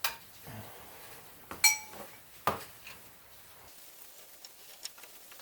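Metal hand tools being handled and set down: a knock, then a loud clink that rings briefly about a second and a half in, another knock just after, then a few faint ticks.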